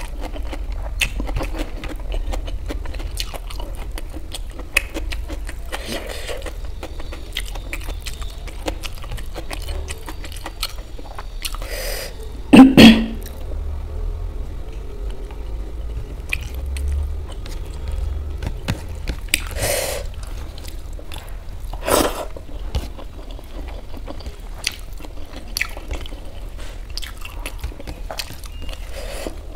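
Close-up chewing and mouth sounds of someone eating fried rice and manchurian by hand, with many small clicks and fingers working the rice on a steel plate. One much louder short sound comes near the middle.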